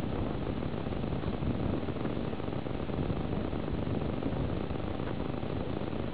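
Steady hiss with a low, fluttering rumble on the small onboard rocket camera's microphone, with no distinct event standing out.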